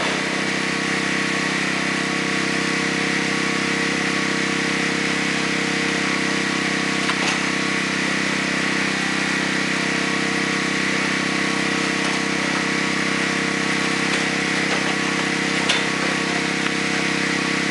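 A small engine running steadily at one constant speed, with two light clicks, one about seven seconds in and one near the end.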